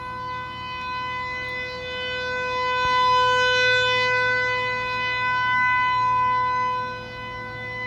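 Outdoor tornado warning siren sounding a steady, unwavering tone during a test. Its loudness swells to a peak a few seconds in and eases off near the end.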